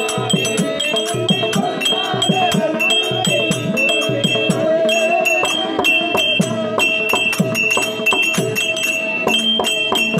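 Therukoothu folk-theatre accompaniment: a steady held drone under a high two-note figure that repeats over and over. It is driven by a hand drum whose low strokes bend in pitch and by small hand cymbals struck in a fast, even beat.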